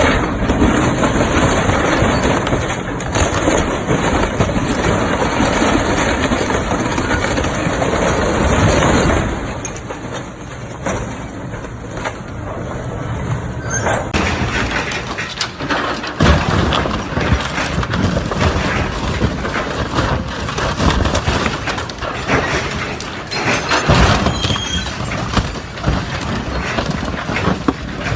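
Hydraulic excavator tearing apart an aircraft's metal airframe: metal crunching, breaking and squealing over the running machine, with repeated heavy knocks.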